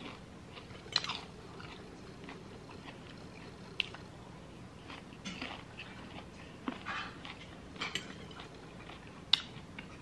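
Close-up chewing of a crunchy chopped salad, irregular crunches and mouth sounds with a few sharp clicks, the loudest near the end.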